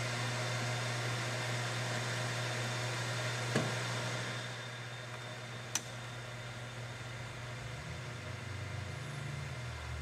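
Manual metal lathe running steadily with its spindle turning a half-inch aluminum bar in the chuck. The hiss over the hum eases about four seconds in. A short knock and then a sharp click come as the tool on the quick-change tool post is swapped.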